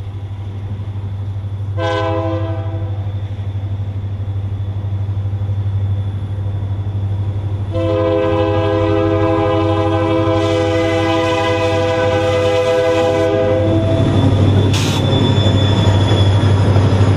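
Diesel locomotive's multi-note air horn sounding a short blast about two seconds in, then a long blast of about six seconds, over the steady low rumble of the running locomotive. A brief sharp hiss follows the long blast.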